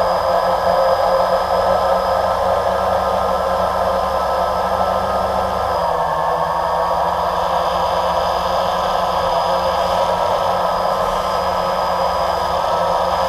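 Steady whir of a multirotor drone's electric motors and propellers, heard from its own onboard camera. The pitch drops slightly about six seconds in.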